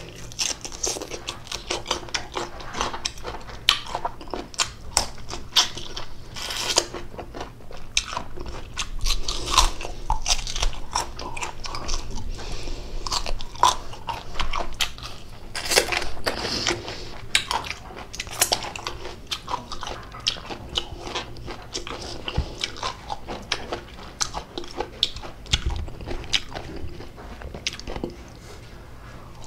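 Close-up biting and chewing of crisp unripe green mango, with irregular wet crunches several times a second that ease off near the end.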